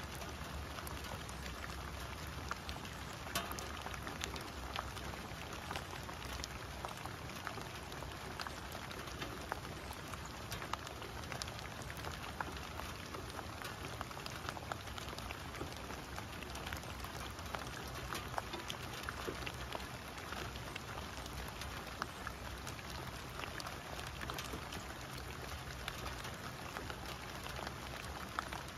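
Steady rain falling on leaf-covered ground and puddled grass, an even patter with scattered sharper drop ticks.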